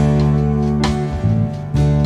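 Background music: a guitar strumming chords, a new strum roughly every second.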